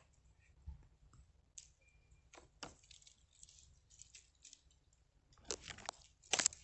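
Faint rustling of leaves and twigs with small clicks and snaps as ripe plums are pulled off the branches by hand, growing louder and busier near the end.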